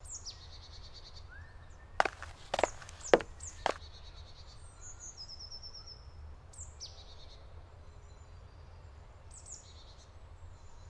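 Songbirds chirping and singing in short high phrases, some falling in quick steps. About two to four seconds in, four sharp clicks or knocks stand out above the birdsong.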